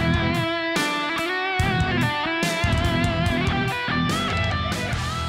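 Background music led by electric guitar, with a steady drum beat.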